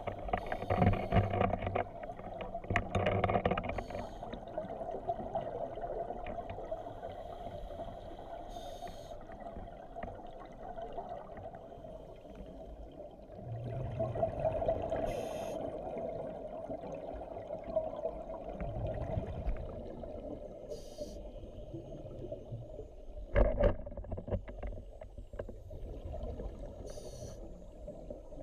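Muffled underwater sound heard through a camera housing, with the scuba divers' regulator exhalations bubbling in louder swells every several seconds and a short sharp burst near the end.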